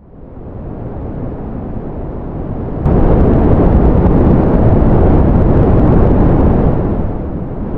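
Ocean surf noise, a steady low rumble without tones. It fades up from silence, steps abruptly louder about three seconds in, and eases a little near the end.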